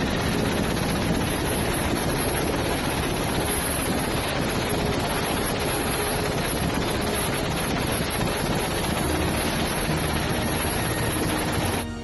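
Steady loud rumble and rush of noise, heaviest in the low end, that cuts off suddenly near the end.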